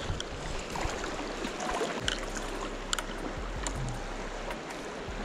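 Fast river current rushing steadily past the bank, with a few faint scattered clicks.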